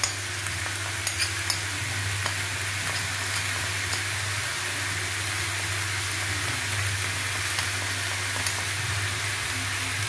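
Raw chicken pieces frying in oil with onion and ginger-garlic paste in a nonstick pan, a steady sizzle, with a few light clicks about a second in.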